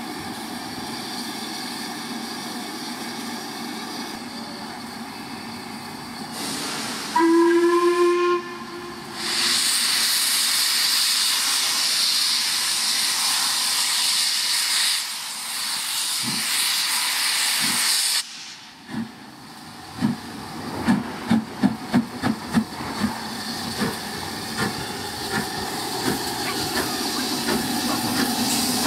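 Steam locomotive 6233 Duchess of Sutherland, an LMS Princess Coronation class 4-6-2: a steady hiss of steam, then a short whistle blast of about a second, the loudest sound, about seven seconds in. A loud rush of escaping steam follows for about nine seconds. After a break there is a run of sharp exhaust beats, about three a second, then fainter beats.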